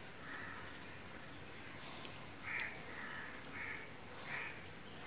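Faint bird calls in the background: a run of short, rough calls, about one every second.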